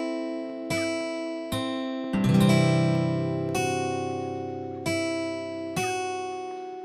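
Background music: an acoustic guitar plucking slow, ringing chords, one every second or so, with a fuller strum about two seconds in.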